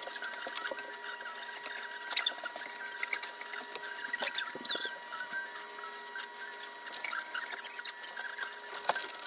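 Hot tip of a wood-burning pen crackling and scratching as it burns into a wooden board, an irregular run of small clicks and tiny squeaks over a faint steady tone, a little louder near the end.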